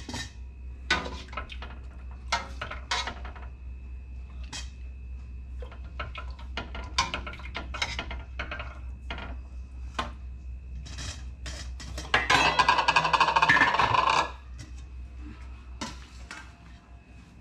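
A metal ladle clinking and scraping against a stainless steel stockpot and a metal bowl as braised pork trotters are lifted out, in scattered separate knocks. Near the end comes a louder clatter of metal rattling for about two seconds. A faint steady high tone runs underneath.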